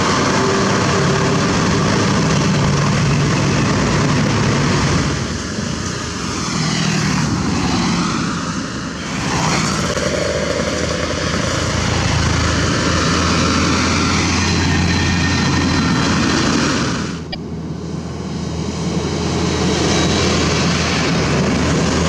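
Diesel engines of heavy self-loader trucks carrying excavators, running steadily as the trucks drive past one after another; the level dips briefly a few times between passes.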